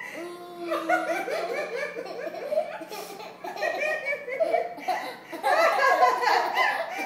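A young child laughing and giggling in repeated high-pitched bursts, getting louder near the end.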